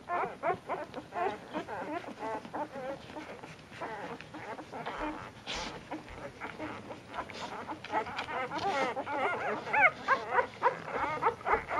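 Newborn Labrador puppies squeaking and whimpering in many short, wavering, overlapping cries as they crawl and jostle to nurse on their mother. The cries come thickest near the start and again from about two-thirds of the way in.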